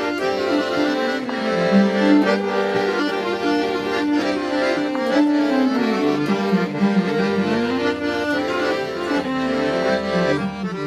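Instrumental folk tune with a lively melody of quick notes moving over a lower accompanying line, playing continuously.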